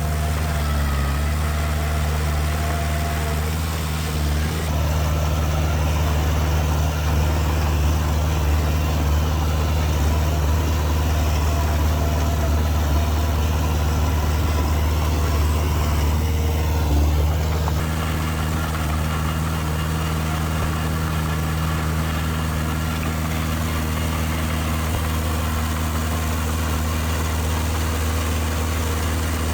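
Diesel engine of heavy earth-moving machinery running steadily, with shifts in the engine note about five seconds in and again around eighteen seconds in.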